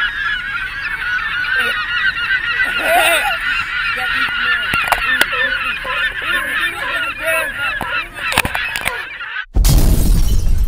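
A flock of gulls calling constantly, many cries overlapping. Near the end the calls cut off abruptly and a sudden loud crash-like noise with a heavy low rumble takes over.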